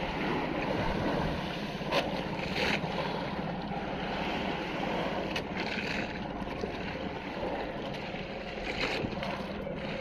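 Outrigger fishing boat underway: its engine running with a steady hum under the rush of water along the hull and wind on the microphone, with a few short knocks now and then.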